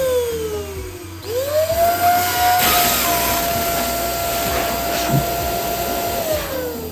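Electric balloon pump motor. It winds down briefly, then starts again about a second in, spins up to a steady whine while a balloon is inflated, and winds down near the end.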